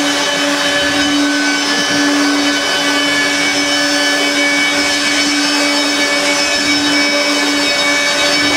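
Electrolux Twin Turbo Z522 upright vacuum cleaner running steadily while pushed over carpet, a constant pitched motor hum. The motor sounds metallic and not quite right, which the owner puts down to a dodgy motor bearing.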